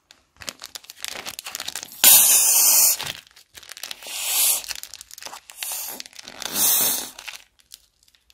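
Plastic bag of foam crinkling as it is squeezed by hand, with three loud spluttering squirts as foam is forced out of its tip into a bowl of liquid slime glue, the first and longest about two seconds in.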